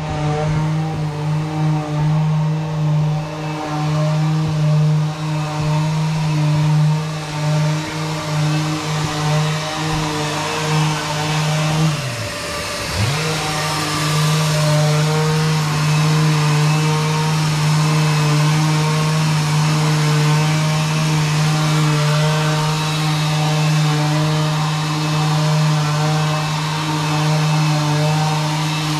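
Electric power tool motor running with a steady hum. About twelve seconds in it is switched off and winds down, then starts up again about a second later.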